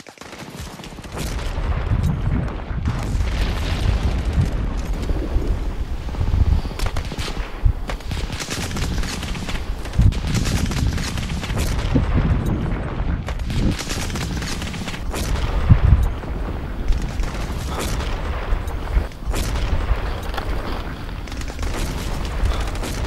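Battle soundscape: scattered gunfire and booms over a steady low rumble, fading in from silence at the start.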